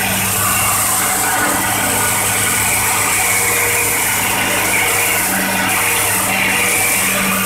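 Excavator's diesel engine running steadily, heard from the operator's seat, with a constant low hum and a broad hiss above it.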